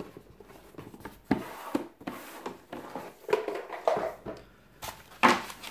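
Rustling and crinkling of a foam packaging bag with scattered clicks and knocks as a boxed keyboard is handled and unpacked; a sharper knock a little after five seconds in.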